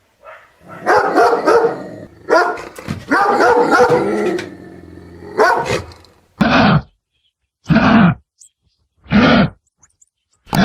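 Dog barking in quick bunches, then single barks spaced about a second and a half apart.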